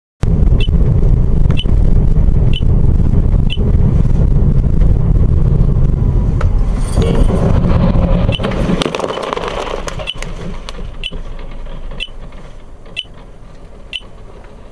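Dashcam audio of a moving car: a loud, steady rumble of road and engine noise that eases off after about eight and a half seconds as the car slows, with a sharp click about once a second throughout.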